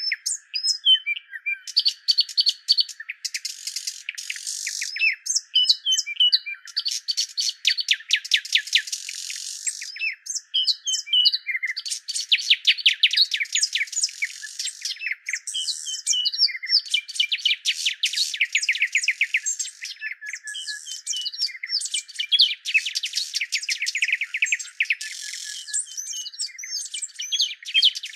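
Birds chirping and trilling in quick runs of repeated notes, with short whistled glides in between. The sound is thin, with no low end.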